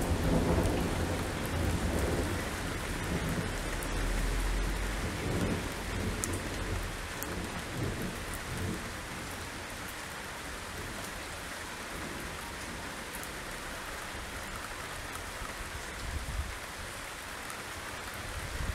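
Torrential rain pouring steadily, with a roll of thunder rumbling through the first few seconds and dying away about six seconds in.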